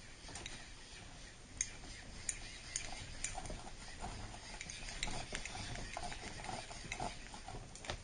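Small microwave turntable motor cranked by hand as a generator, its plastic gears giving off a string of light, irregular ticks and clicks.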